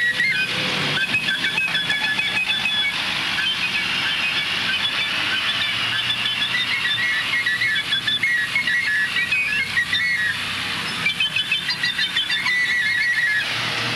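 High, shrill whistle-like tones that jump quickly between a few pitches, over a steady hiss.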